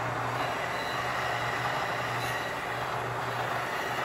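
Milling machine running steadily, a continuous mechanical whir over a low hum.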